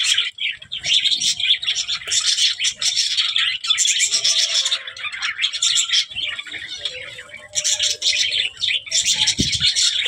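A flock of budgerigars chattering and warbling: a dense, rapid stream of high chirps that thins out for a moment about two-thirds of the way through, then picks up again. Near the end there is a single low thump.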